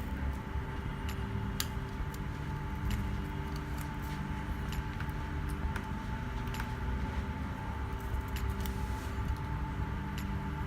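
Vacuum laminating machine running with a steady hum from its vacuum pump and air compressor while the piston presses the glass onto the display, with light scattered clicks and clinks over it.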